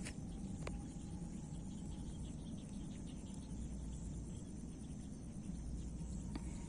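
Insects chirring steadily in a high, even band, over a low rumble and a few faint clicks.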